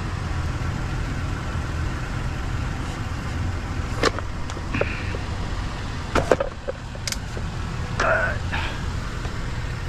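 Steady low rumble of a nearby vehicle engine, with a few sharp metal clicks and two short scrapes as a small motor is worked at by hand to get it off its mounting.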